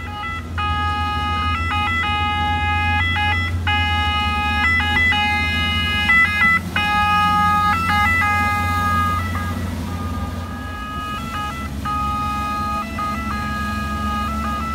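Venetian ambulance boat's two-tone siren alternating between a high and a low pitch, over the steady low rumble of the boat's engine. The siren fades around nine seconds in and returns fainter near the end.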